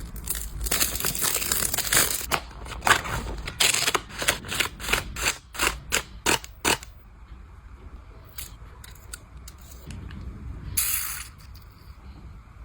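Close-up handling noises: a stretch of dense crinkling, then a run of short separate crinkling or snipping strokes, with a single short rustle near the end.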